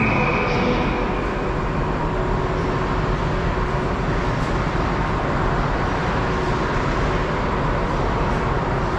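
Steady low rumbling background noise, with a thin high tone that fades out within the first second.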